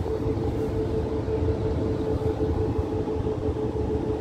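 PKP Intercity EP09 electric locomotive slowly drawing a passenger train in. It gives a steady low rumble with a steady hum running through it.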